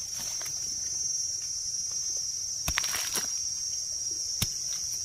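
A steady high-pitched drone of forest insects, with a few short clicks and scrapes about three and four seconds in as a knife trims soil from the stems of freshly picked mushrooms.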